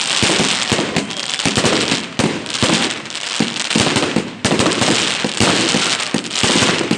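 Fireworks going off in rapid succession: a dense, continuous run of bangs and crackles with only brief lulls.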